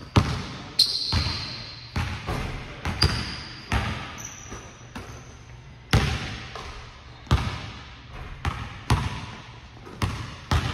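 Basketballs bouncing on a hardwood gym floor: about a dozen sharp, irregular thuds, each ringing on through the hall. A few short, high squeaks from sneakers on the court come in between.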